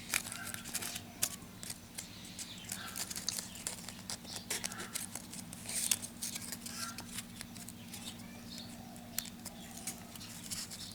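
Stiff insulating paper separators being slid into the slots of a ceiling fan stator with a bamboo stick: scattered light clicks and scratches.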